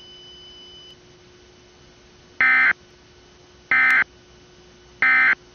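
Emergency Alert System end-of-message data bursts: three short, identical buzzy digital squawks about a second and a quarter apart, signalling that the alert message is over. A faint steady hum lies underneath.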